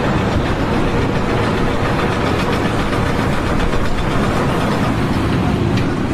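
Loud, steady machine noise, a dense rumble and clatter without pauses.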